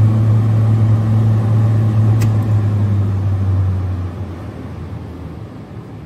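Kaeser BSD 72 37 kW, 11-bar rotary screw air compressor running on load with a steady low hum. The hum fades away from about three and a half seconds in.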